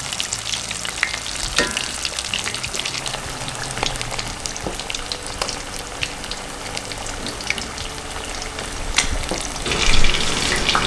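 Breaded rock bass fillets deep-frying in hot peanut oil in a stainless steel pan: a steady sizzle full of small crackles and pops. A louder rush of noise comes near the end.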